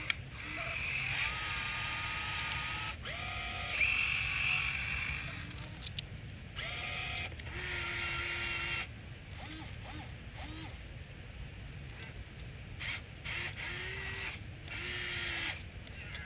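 Electric motors and gearing of a radio-controlled construction model whining in short bursts. Each burst starts and stops every second or two, and the pitch steps up and down as the functions are worked.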